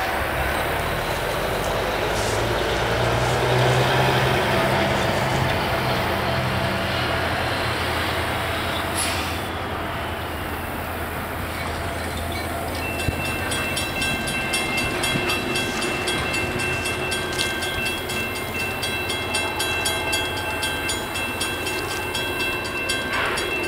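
Train running past with a steady low rumble that swells about four seconds in and eases off after about ten seconds. From about thirteen seconds in, a grade-crossing warning bell rings rapidly while the crossing gates lift.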